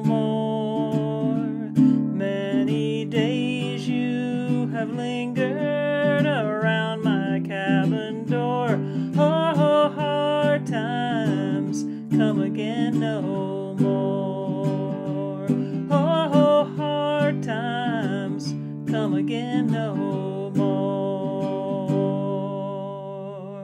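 Ukulele strummed and picked with wordless singing of the melody over it, as the song's closing passage. Near the end the playing stops and the last chord rings and fades.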